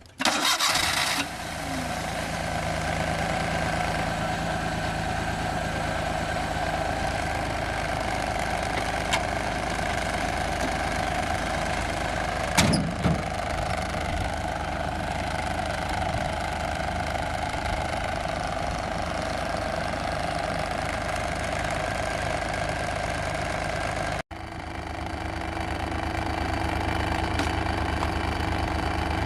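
A Suzuki Mehran's three-cylinder petrol engine catches and starts with a brief louder burst, then runs steadily at idle. A single sharp knock is heard about halfway through.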